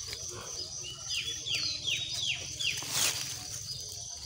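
A bird calling a quick run of about five short whistled notes, each sliding down in pitch, about one to three seconds in. A steady high-pitched drone sits behind it.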